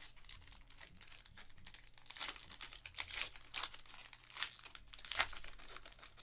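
Clear plastic trading-card pack wrapper crinkling and tearing as it is opened by hand, in irregular crackles that are loudest in the middle and again about five seconds in.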